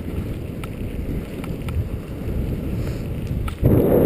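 Wind buffeting the microphone and the dog scooter's tyres rolling over a gravel road at speed, a steady rushing noise with a louder gust near the end.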